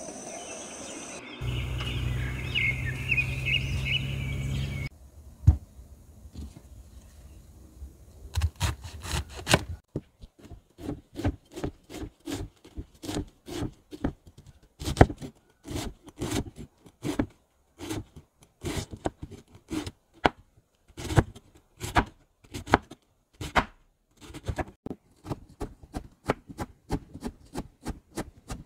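A large knife chopping cabbage on a wooden chopping board: sharp strokes, a few scattered ones at first, then a steady run of about two to three a second. The first few seconds hold a different, steadier sound before the chopping starts.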